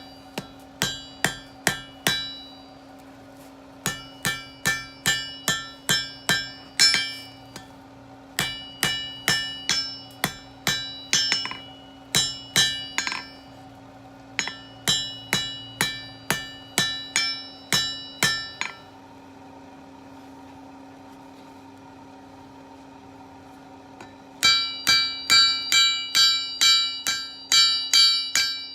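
A blacksmith's hammer striking steel on an anvil as a planter stake's end is drawn out for a leaf. The blows come in runs of about three a second, each leaving a bright ring. The strikes stop for about six seconds, then resume louder with a higher ring, over a steady hum.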